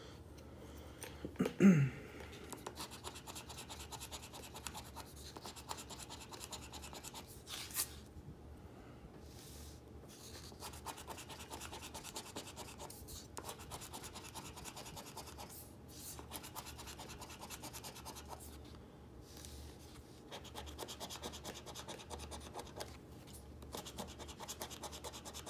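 Fine, continuous scraping of a scratch-off lottery ticket's silver coating being rubbed off with a small hard disc, in quick short strokes. A brief louder sound cuts in about two seconds in.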